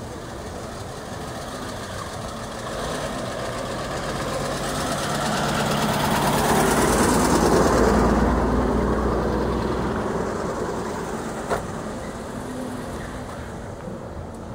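A classic car's engine running as it drives past, growing louder to a peak about halfway through and then fading away. A single sharp click comes about three quarters of the way through.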